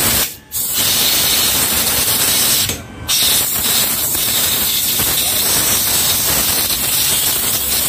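Compressed-air blow gun hissing steadily as it blows a scooter's CVT pulley part clean and dry, with two short pauses in the airflow, about half a second in and near three seconds in.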